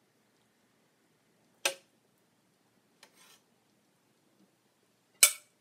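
Metal serving spoon clinking against the stainless steel inner pot of an Instant Pot twice, about three and a half seconds apart, with a faint scrape between, as cooked cabbage leaves are lifted out.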